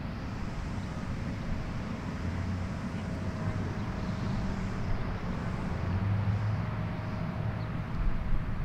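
Steady outdoor background rumble with a faint constant hum and no distinct events.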